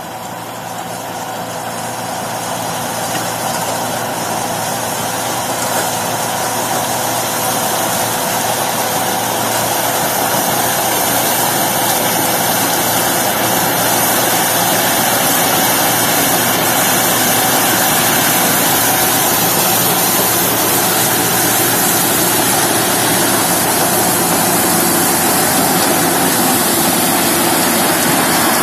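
Tractor-mounted sugarcane harvester working through standing cane: its engine, cutters and cane elevator make a dense, steady mechanical noise that grows louder over the first dozen seconds as the machine draws closer, then holds.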